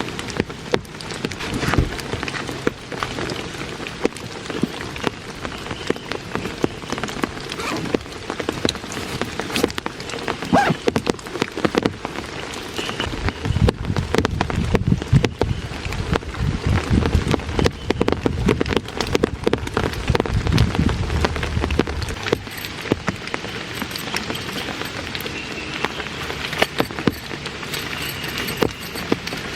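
Heavy rain falling, its drops striking a surface in a dense, continuous run of sharp ticks. About halfway through, a low rumble swells under the rain for several seconds.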